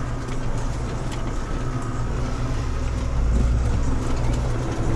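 Deutz-Fahr tractor engine running steadily under load while pulling a field implement, heard from inside the cab as a low, even drone.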